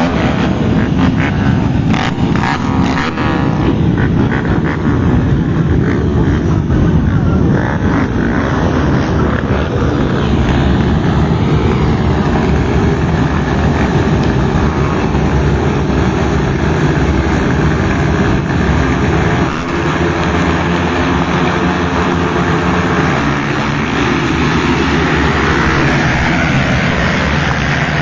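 A full field of motocross bikes revving hard at the starting gate, then accelerating off the line together at the race start.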